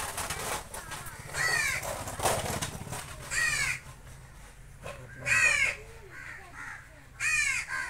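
A crow cawing four times, about two seconds apart, each caw short and falling in pitch. In the first three seconds, rhythmic hissing squirts of milk strike a steel bucket as a cow is milked by hand.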